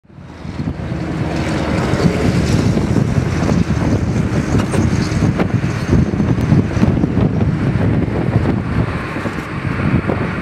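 Boeing C-17 Globemaster III's four Pratt & Whitney F117 turbofans at takeoff power, a loud, ragged, crackling rumble as the jet rolls down the runway. The sound rises in over the first second, then holds steady.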